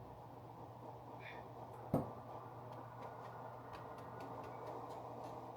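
Faint taps and scrapes of a graham cracker crumb crust being pressed flat into a baking pan, with one sharper knock about two seconds in, over a steady low hum.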